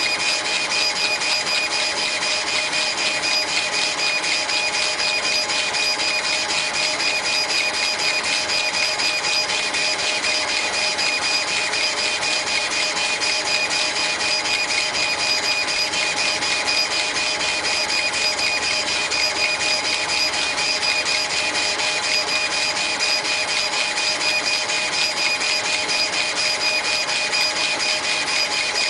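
CO2 laser engraving machine with a rotary axis running while it engraves a cylindrical cup: a steady mechanical whine and hiss with a fast, even flutter as the head moves back and forth.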